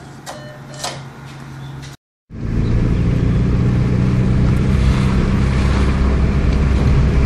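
Two short beeps from an NCR cash machine as the card comes back out. Then, after a brief cut, loud steady engine and road noise inside a car's cabin as it drives slowly along a street.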